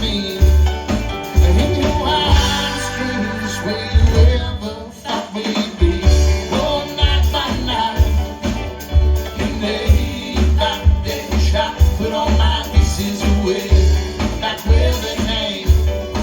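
Live band playing a rock song with a steady bass and drum beat and a jingling tambourine, the playing thinning out briefly about four seconds in before the full band comes back.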